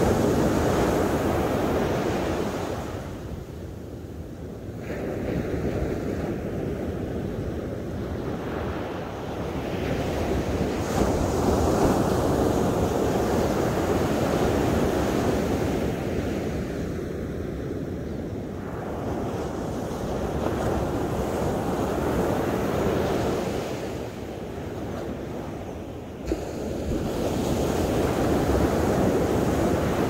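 Surf breaking on a sandy beach: waves crash and wash up the sand in slow swells, easing off about 4, 17 and 25 seconds in, with a sudden new crash shortly before the end.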